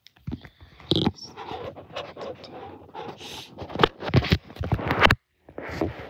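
A girl crying without words: ragged, panting sobs and gasping breaths, strongest about four to five seconds in, then a short pause before another shaky breath.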